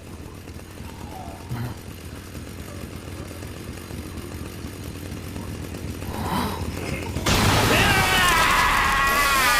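A low rumble swells steadily, then about seven seconds in a chainsaw engine starts suddenly and loudly, its pitch wavering up and down as it revs.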